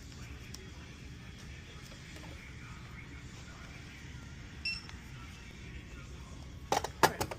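Quiet shop-counter room tone, with a short electronic beep about two-thirds of the way in and a quick run of sharp knocks and clatter near the end, as the sale is rung up at the checkout.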